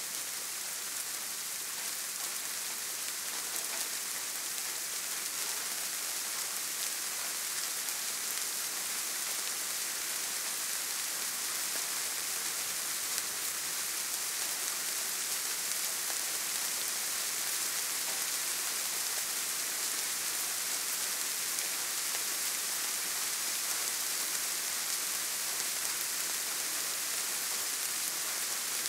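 Soft rain falling steadily: an even, unbroken hiss of many fine drops, with no thunder.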